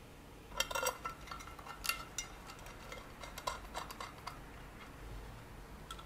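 Light clicks and clinks of small screws and keyboard parts being handled and set down, a handful of separate ticks, most of them in the first four seconds.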